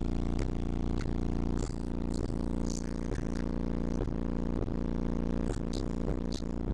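Bass-heavy music played very loud through two 12-inch subwoofers, heard from inside the car cabin and distorted, with a thumping beat about twice a second. Short high rattles and buzzes come in time with the bass, which sounds like the car's trim vibrating.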